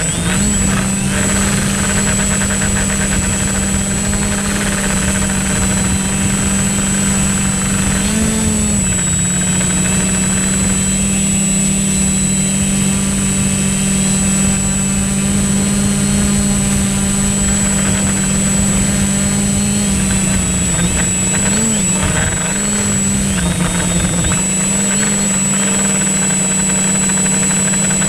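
Drone's electric motors and propellers humming steadily, with a thin high whine above. The pitch wavers briefly about eight seconds in and again around twenty-one to twenty-three seconds.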